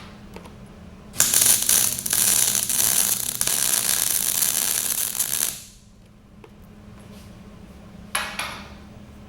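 Electric welding arc crackling on steel plate for about four seconds, starting a second in and cutting off suddenly as the weld stops, over a steady low hum. Near the end a single metallic clink rings briefly.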